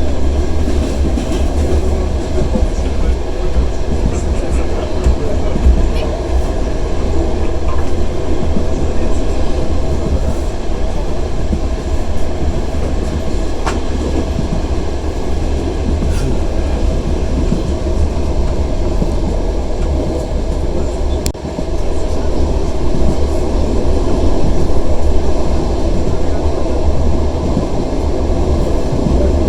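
Passenger train running, heard from inside the carriage: a steady loud rumble of the wheels on the rails, with a few sharp clicks.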